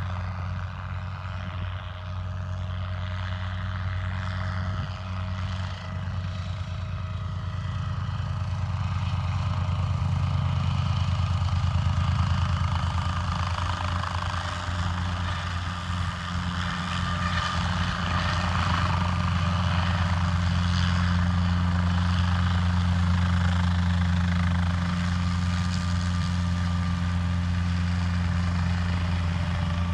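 Guimbal Cabri G2 light helicopter in flight, its rotor beating steadily over the drone of its Lycoming O-360 piston engine. It grows louder over the first ten seconds or so as it manoeuvres closer, then holds steady.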